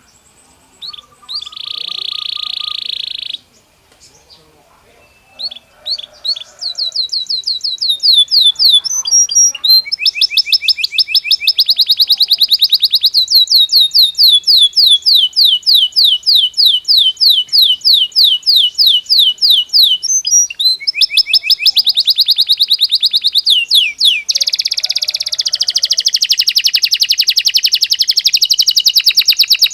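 Belgian canary singing: after a short buzzy note near the start, a long unbroken run of fast trills, each made of rapidly repeated falling notes, the song switching between trill types every few seconds.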